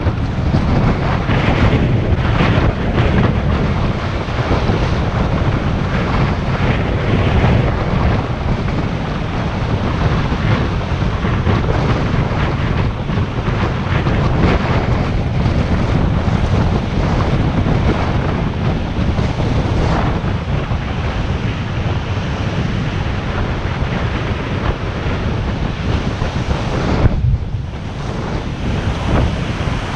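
Strong wind buffeting the microphone, with surf breaking on the beach beneath it. The low rumble of the wind drops away briefly about 27 seconds in, then comes back.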